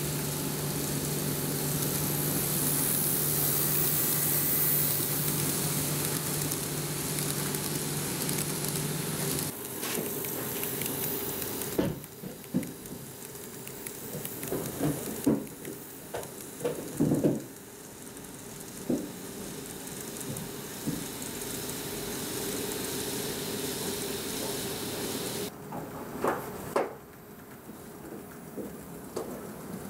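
N-gauge model electric train (KATO 221 series) running on track: a hissy rattle of wheels on rail with a steady low hum. About a third of the way in the hum stops and the sound turns quieter, with scattered sharp clicks.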